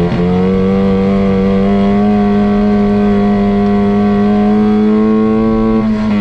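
Off-road race vehicle's engine heard from inside the cab, held at high revs with its pitch slowly climbing after a short break at the start. It eases off at the very end.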